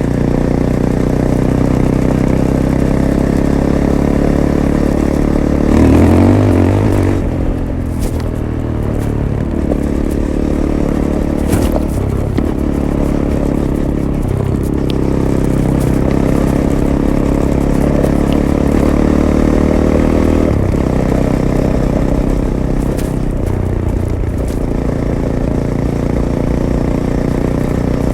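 Fantic Caballero 500's single-cylinder engine running through its stock Arrow exhaust while riding, its pitch rising and falling with the throttle, with a loud burst of revs about six seconds in. Scattered short clicks and rattles sound over it.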